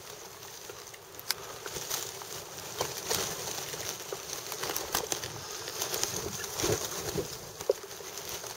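Shallow water lapping, with irregular small splashes from waterbirds feeding with their heads under the surface over a steady hiss.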